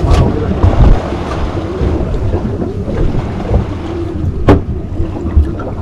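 Wind buffeting the microphone and water noise aboard a fishing boat, a heavy uneven rumble, with one sharp knock about four and a half seconds in.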